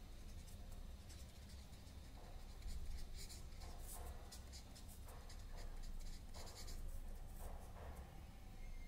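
Marker pen writing words on paper: a run of short, irregular scratching strokes of the felt tip across the sheet.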